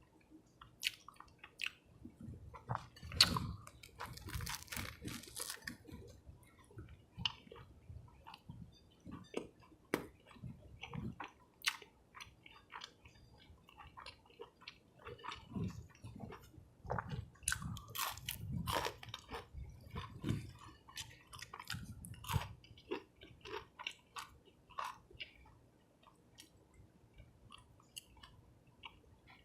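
Close-miked eating sounds of a person chewing and biting into a cheese fish sub and fries. Irregular crunches and mouth clicks are loudest about three seconds in and again around eighteen to twenty seconds.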